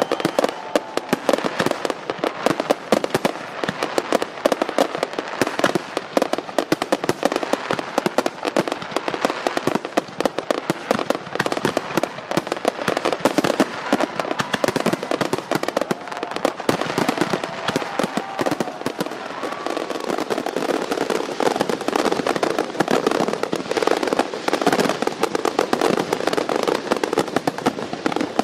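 Fireworks display: a dense, continuous crackle of many rapid, irregular pops and bangs.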